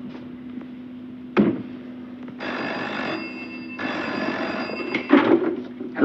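Desk telephone bell ringing in two long rings. A clatter near the end as the receiver is lifted, and a single sharp thump about a second and a half in.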